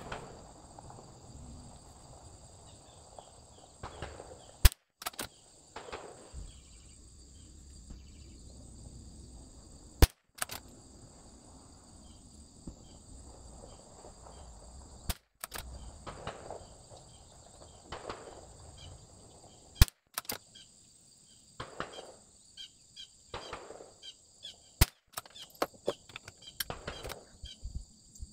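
Bergara BMR bolt-action .22LR rifle firing Lapua Center-X match ammunition: five sharp rimfire shots about five seconds apart, with quieter handling noises between them.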